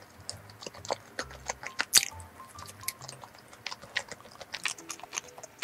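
Close-up chewing of a soft filled doughnut: many small, quick wet mouth clicks and smacks, irregular, over soft background music.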